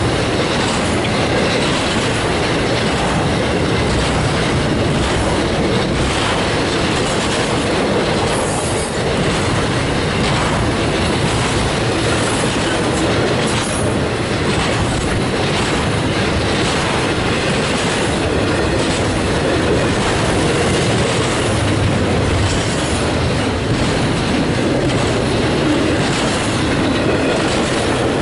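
Intermodal freight train cars loaded with truck trailers rolling past close by: a loud, steady rumble of steel wheels on rail with continual clickety-clack.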